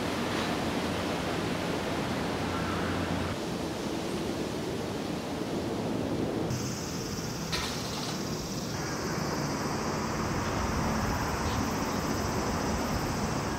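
Outdoor ambience: a steady wash of noise, with a low hum in the first few seconds. About six and a half seconds in, a steady high-pitched buzz sets in and holds.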